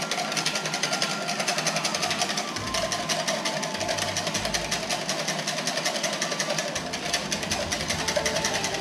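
Wire balloon whisk beating egg yolk and ice-cold sparkling water in a plastic jug: a fast, even rattle of the wires against the jug, many strokes a second, as the tempura batter's wet mix is whipped light and frothy.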